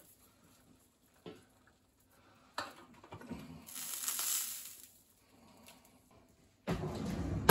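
Basting turkey in a hot enamelware roaster in the oven: small scrapes and a soft hiss of juices through the middle, then a metal clatter near the end as the roaster's lid goes back on.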